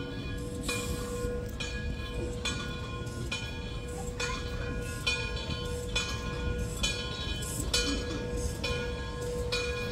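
Steam locomotive's bell ringing at an even pace, a stroke a little more often than once a second, each stroke ringing on, over the low rumble of the approaching train.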